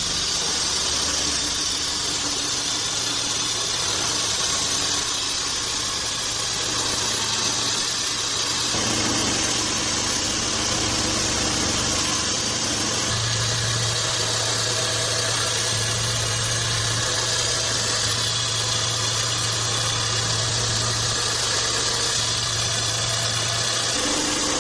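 Bandsaw sawmill machinery running steadily: a continuous low mechanical hum under a dense hiss. The hum's tone shifts about nine seconds in and again about thirteen seconds in.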